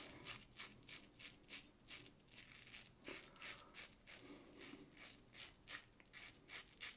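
Faint, short strokes of a Merkur 37C slant double-edge safety razor cutting through lathered stubble, about two or three a second, growing a little louder near the end.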